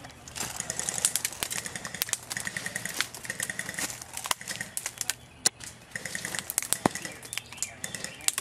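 Airsoft guns firing in rapid bursts of evenly spaced shots, with scattered single sharp cracks in between.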